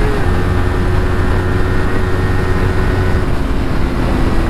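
Motorcycle engine running at a steady pitch while riding, over a rush of wind and road noise; the engine note dips slightly just after the start and eases lower near the end.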